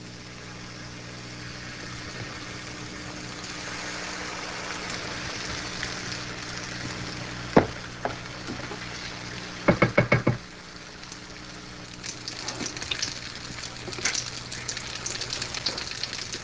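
Pancake batter frying in a hot greased skillet: a steady sizzle that builds and turns crackly in the later part. A sharp knock comes about seven and a half seconds in, and a quick run of several knocks follows at about ten seconds.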